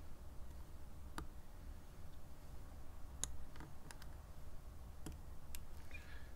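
Faint, scattered clicks of a lock pick and tension wrench working the pins of a BEST SFIC padlock core, about half a dozen spread over a few seconds.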